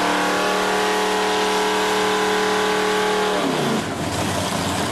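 Engine revved up, held at a steady high speed for about three seconds, then let back down about three and a half seconds in.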